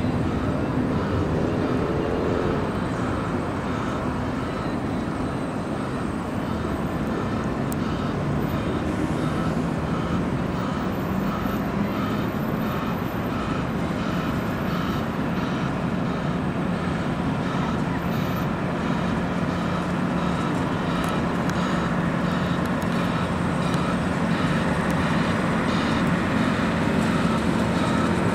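Steady traffic noise with a low engine drone that grows a little louder in the second half as a road-rail vehicle approaches along the tracks.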